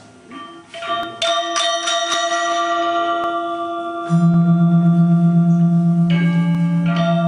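Balinese gamelan playing: bronze metallophones struck in a sparse pattern, their notes ringing on. About four seconds in, a loud deep tone comes in with a steady wavering pulse, and quicker strikes pick up near the end.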